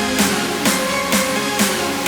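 Electronic background music with a steady beat of about two beats a second.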